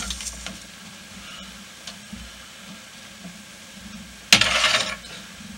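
Faint steady sizzle from a saucepan of hot frying oil just taken off the heat. About four seconds in comes a sudden loud noisy burst lasting just over half a second as the pan is moved and set down.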